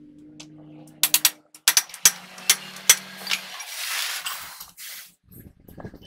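A quick run of sharp metallic clicks and clinks, about ten in two and a half seconds, from metal parts of a truck wheel hub being handled and fitted into the hub.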